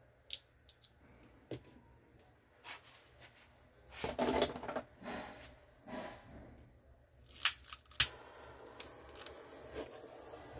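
Small handling clicks and rustles on a workbench, then two sharp clicks about seven and a half seconds in as a butane heat tool is lit, followed by the steady hiss of its burner, used here to shrink heat-shrink tubing over wire splices.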